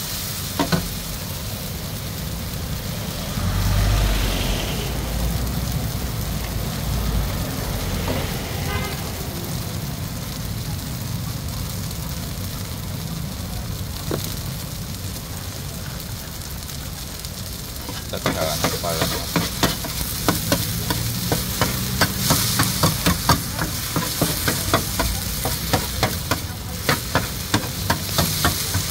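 Noodles sizzling as they fry in oil on a wide, shallow steel pan, turned with a metal spatula. About two-thirds of the way through, the spatula starts scraping and clacking quickly against the pan, several strikes a second.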